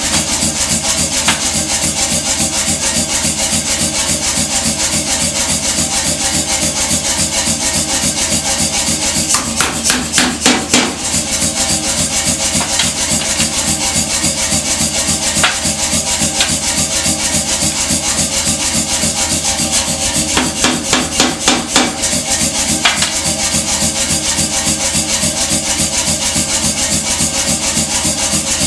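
Power hammer running with rapid, even blows, forming a red-hot steel plate into the cup of a tealight holder. Louder spells of blows come about ten and twenty-one seconds in.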